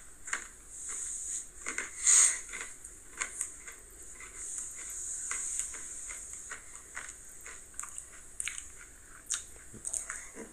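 A person chewing crunchy Flamin' Hot Cheetos Pretzels: irregular crunches and mouth clicks, the loudest crunch about two seconds in.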